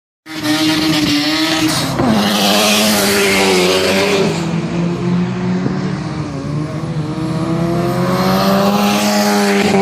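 Mazda rotary-engined race car running hard on the circuit. Its note drops sharply about two seconds in, then climbs slowly and steadily.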